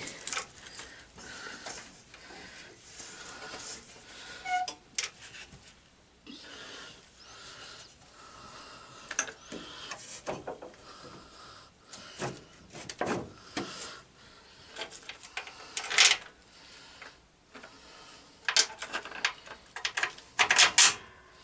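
Hand work on a garden tractor's steering assembly: scattered clicks, taps and scrapes of metal parts, bolts and tools being handled, with a brief ringing clink about four and a half seconds in.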